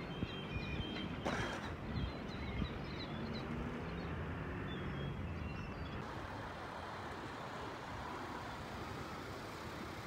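Harbourside ambience: a steady low rumble of traffic, with faint short high bird calls in the first half and a brief rush of noise about a second in.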